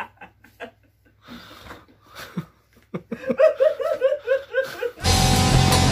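A man laughing hard, with a breathy wheeze partway through and then a quick run of repeated 'ha-ha' pulses, about five a second. About five seconds in, loud guitar music starts abruptly.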